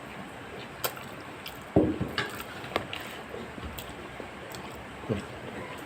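Close-up wet eating sounds: chewing and mouth noises, with scattered small clicks and a louder wet sound about two seconds in.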